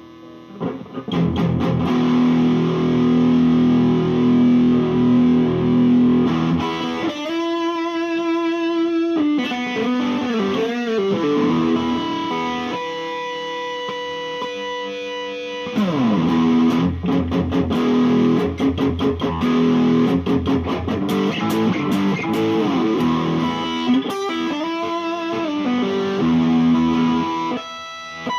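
IYV ILP 400 electric guitar with a Floyd Rose bridge, played on the neck pickup through a Peavey Bandit TransTube amp: a riff of repeated low notes, with passages where the notes bend and waver in pitch.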